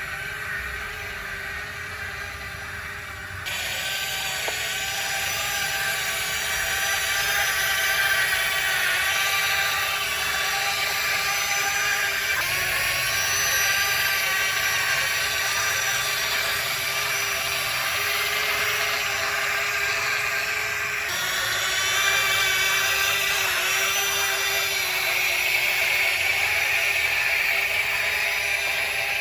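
Small electric motors and gearing of a model excavator whining steadily, stepping up in pitch and loudness a few seconds in and changing again about two-thirds of the way through.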